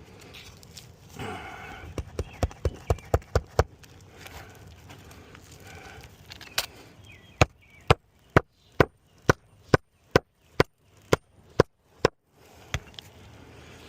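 Hammer driving nails into a roof shingle: a quick run of about eight blows, then after a pause a slower, even run of about ten blows, roughly two a second.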